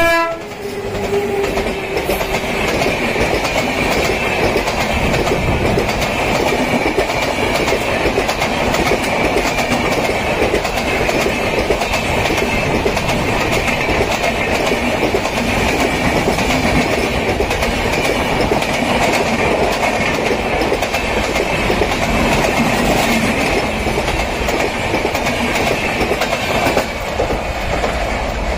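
Konark Express passenger train running steadily, its wheels clattering over rail joints in a continuous clickety-clack.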